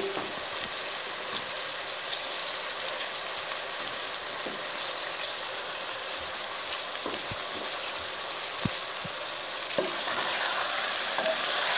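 Chicken pieces sizzling in hot oil in a steel pot: a steady frying hiss with a few light knocks. It grows a little louder near the end as a spoon starts stirring.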